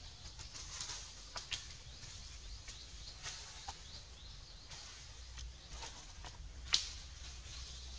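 Outdoor forest ambience: a steady high hiss over a low rumble, with scattered short chirps and clicks, and one sharp snap about three-quarters of the way through.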